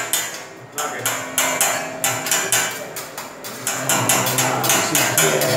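Metal spatula clacking on a teppanyaki steel griddle as fried rice is chopped and tossed, a quick run of sharp taps, several a second.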